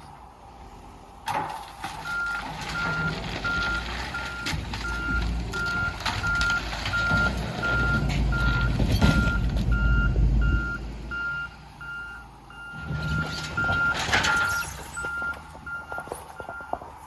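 Heavy-equipment backup alarm beeping at a steady, even rate from about two seconds in, over the diesel engine of a front-end loader working under load, loudest in the middle. A sharp clatter of debris about a second in and again near the end.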